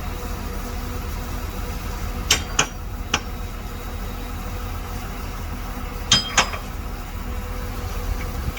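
Shantui DH17C2 bulldozer's diesel engine running steadily, with a few sharp knocks about two to three seconds in and a pair of knocks about six seconds in.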